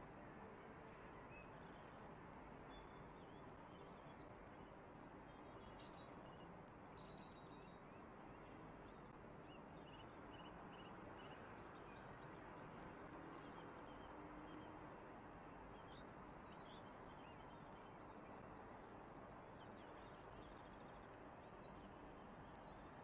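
Near silence: a faint steady hum of the distant city, with faint short bird chirps now and then.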